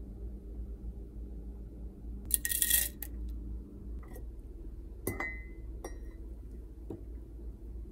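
A short rattle about two and a half seconds in, then a few light clinks of a stainless steel mesh tea infuser against a ceramic mug, one with a brief ring.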